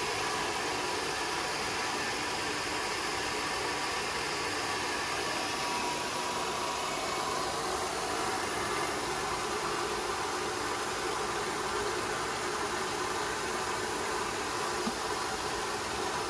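Heavytech 6N40 DSV mini rice mill, a huller with de-stoner and vibrator attachments driven by a 3 hp motor, running steadily during a demonstration: a continuous, even mechanical whir and hiss.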